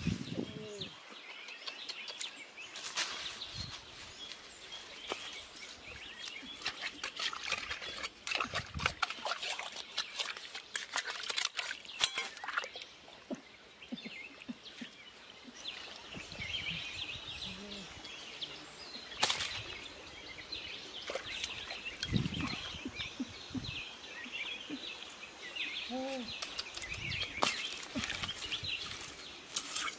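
Dry roots and dead leaves rustling and crackling as hands tear at them and dig into a muddy, water-filled hole, with birds chirping in the background. Near the end, fish flop about on dry leaves.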